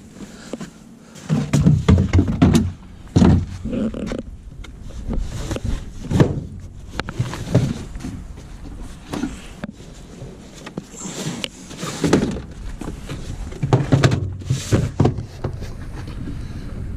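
Gear being moved around in a tow truck's toolbox: an irregular series of knocks, clunks and rattles as items are lifted out and set back down.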